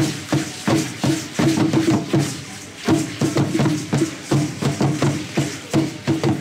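Percussion music for a traditional dance: a drum struck in a quick, even rhythm with sharp, ringing strokes.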